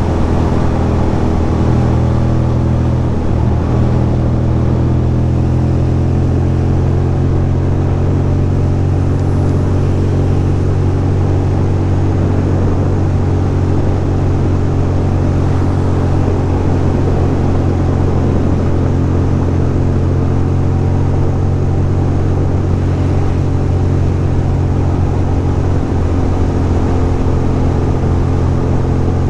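2006 Ducati Monster 620's air-cooled L-twin engine running steadily at cruising speed, its pitch holding nearly level throughout.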